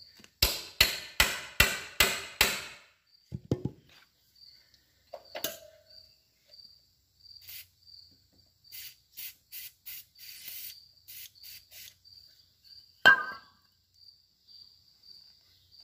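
About six sharp, ringing metal blows in quick succession: a hammer knocking on a wrench at the rear shock mounting bolt of an old Yamaha motorcycle. Then several short hisses of an aerosol can spraying penetrating oil onto the bolt, and one loud knock near the end. Crickets chirp in a steady pulsing trill throughout.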